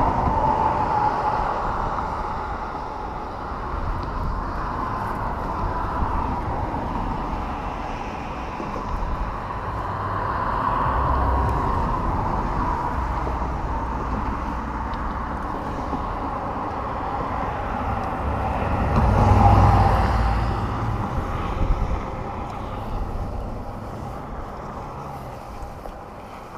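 Boat motor running: a steady low rumble with a wavering whine above it, swelling about 19 seconds in.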